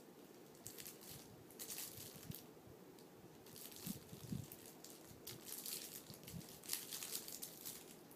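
Puppy wriggling on its back among blankets and plush toys, making faint crinkling and rustling in several short spells, with a few soft thumps.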